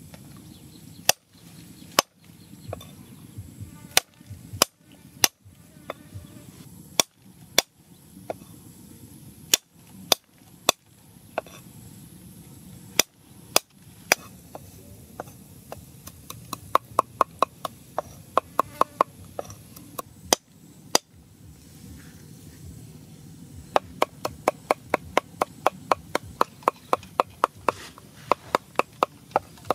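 Knife chopping red chillies and garlic on a thick round wooden chopping block: single sharp chops spaced about a second apart at first, then quick runs of several chops a second in the second half.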